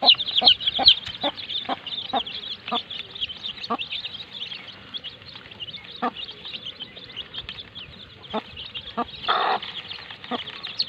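Baby chicks peeping constantly in high chirps, with a mother hen's short low clucks about twice a second over the first four seconds and now and then after. A brief harsher rasping sound comes about nine and a half seconds in.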